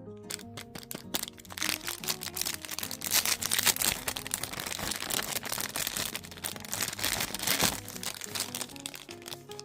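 Packaging crinkling and crackling as it is handled and opened, loudest through the middle, over background music.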